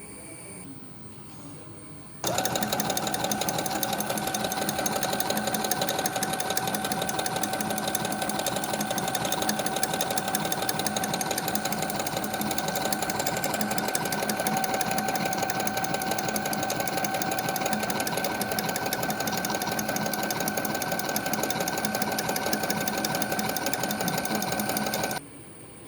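Brother FS101 sewing machine running at a steady speed, sewing a decorative embroidery stitch: rapid needle clatter over a steady motor whine. It starts about two seconds in and stops shortly before the end.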